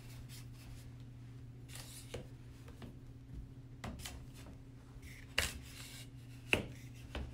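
Hands working an aluminium rod through the holes of a plastic grid cage wall: scattered plastic clicks and short rubbing scrapes, with two sharper knocks in the second half, over a steady low hum.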